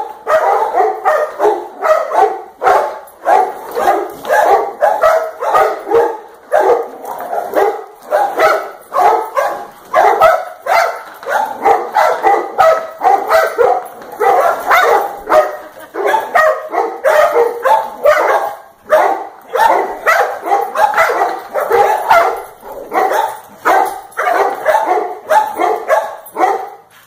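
Dogs barking and yipping in play, almost without a break, the barks coming in quick runs.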